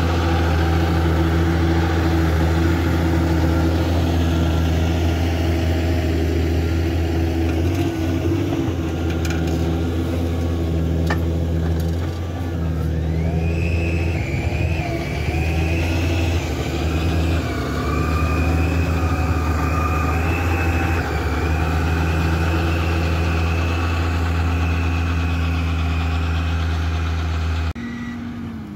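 John Deere 6210R tractor's six-cylinder diesel engine running steadily under ploughing load. A wavering high whine joins about halfway through, and the sound drops abruptly near the end.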